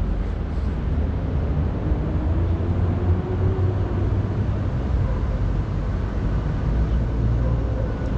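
Steady low rumble with a hiss over it: outdoor city background noise, with wind on the microphone.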